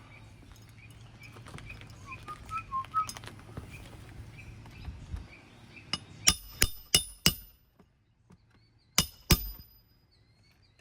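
Sharp metallic clinks as a roof snake is worked under asphalt shingles: four in quick succession, then two more a couple of seconds later, after a stretch of faint scraping.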